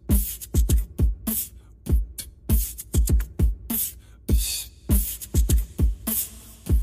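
Background music with a heavy hip-hop-style beat: deep kick drums that drop in pitch, with sharp snare- and hi-hat-like hits between them.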